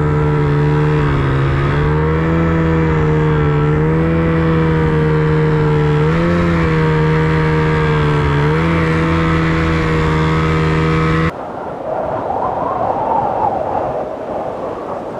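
Snowmobile engine running at steady high revs through deep powder, its pitch rising briefly twice. It cuts off suddenly about eleven seconds in, leaving a softer rushing noise.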